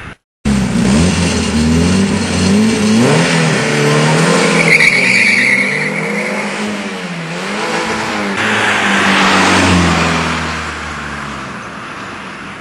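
Twin-engine Peugeot 205 Mi32 accelerating hard. The engine note climbs in pitch, drops at each gear change and climbs again several times. A brief high squeal comes about five seconds in, and the sound fades steadily as the car pulls away.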